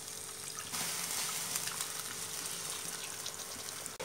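Water poured into a hot pan of fried chicken and masala, starting about a second in: a steady pouring hiss as 1 to 1.5 cups of water go in for the gravy.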